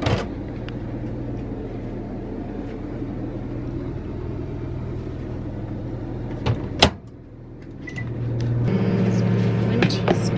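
Microwave oven running with a steady hum while melting butter. About seven seconds in it stops with a sharp click, a single short keypad beep follows, and a louder hum starts again.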